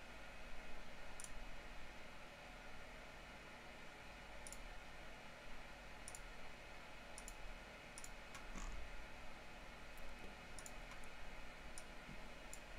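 A computer mouse clicking, about a dozen separate single clicks spread irregularly, over a faint steady hum.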